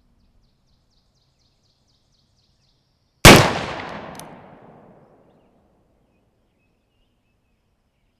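A single shot from a Pietta 1858 Remington Navy .36 percussion revolver loaded with 25 grains of 3F black powder: one sharp bang a little over three seconds in, followed by a long fading echo.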